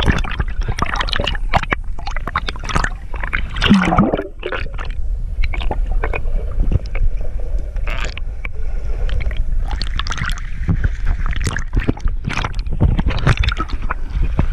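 Sea water splashing and sloshing against an action camera held at the surface, with many short splashes over a constant low rumble. There is gurgling as the camera dips under the water.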